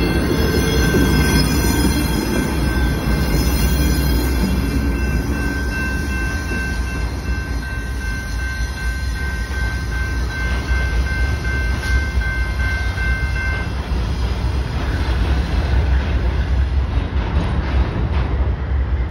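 Amtrak passenger train running on the rails, with a steady high-pitched wheel squeal over a constant low rumble; the squeal stops about two-thirds of the way through.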